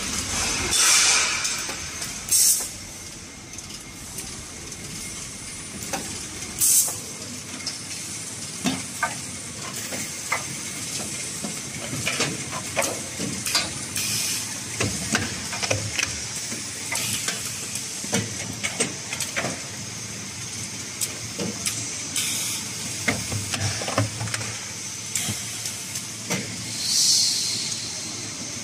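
Automatic pail-capping machine running: a steady hiss with a few loud hissing bursts of about a second each, near the start, about seven seconds in and near the end, and frequent mechanical clicks and knocks from the capping mechanism and the pails on the roller conveyor.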